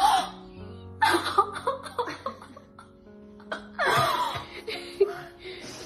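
A woman's overwhelmed cries and laughter in several high, sliding bursts of voice as she is surprised with a new puppy, over steady background music.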